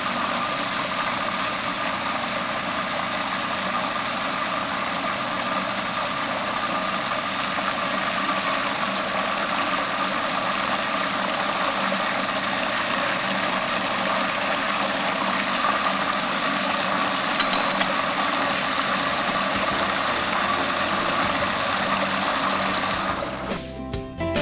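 Countertop food processor motor running steadily with a constant whine, pureeing strawberry chipotle vinaigrette while olive oil is drizzled in to emulsify it. About a second before the end the motor sound stops and music begins.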